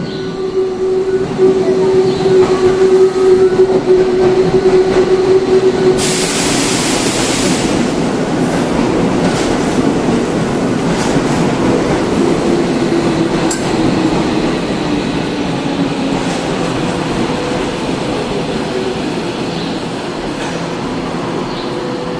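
Tokyo Metro 13000 series subway train pulling into the platform and braking to a stop. A steady whine runs under the loud rush of the cars, a short burst of hiss comes about six seconds in, and the whine falls in pitch as the train slows.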